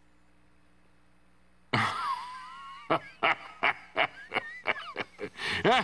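Near silence, then nearly two seconds in a man bursts into laughter that goes on in quick, even bursts of about three a second.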